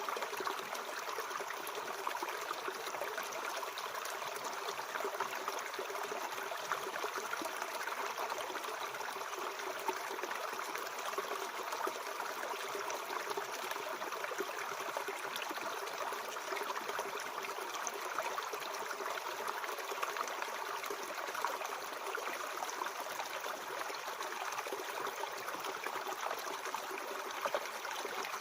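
Mountain stream flowing steadily over rocks, an even rush of water with fine trickling.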